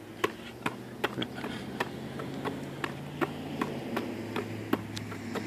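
A basketball being dribbled quickly on a hard outdoor court: a run of sharp bounces, about two to three a second at an uneven rhythm.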